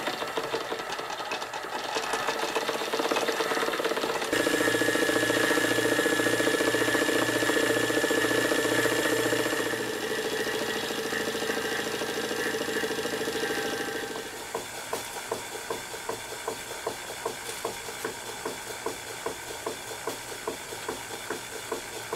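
Model live-steam engines running. First a small horizontal mill engine belt-driving a little generator makes a fast, even clatter, with a steady high tone for several seconds. About two-thirds of the way through, a Cotswold Heritage Atlas vertical steam engine takes over with a slower, regular beat.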